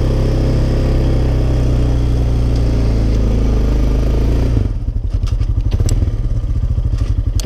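Honda Foreman 450's big single-cylinder four-stroke engine working hard under load while pushing snow with a 60-inch plow. About four and a half seconds in the throttle comes off and it drops to a slow, lumpy chug, with a few clicks.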